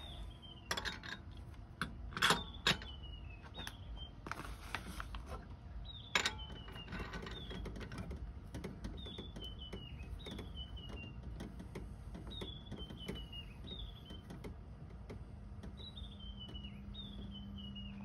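Metal clinks and knocks as the screw-on top of a Bellman CX25-P stovetop espresso machine is fitted and tightened down, loudest about two seconds in. A bird calls over it again and again, each call a short falling whistle.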